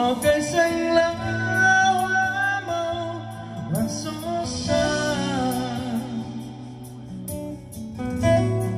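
A man singing into a microphone over guitar-led music, amplified through an RCF PA system during a sound check.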